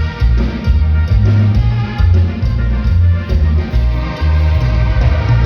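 Band music in the chilena style: Latin dance music with drums and a heavy bass line pulsing in a steady repeating rhythm, with instruments playing over it.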